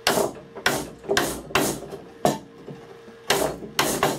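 A mortise chisel is driven into a wooden stool seat by repeated blows on its handle, chopping an angled mortise for a splayed leg. There are about eight sharp knocks at an uneven pace, with a pause of about a second midway.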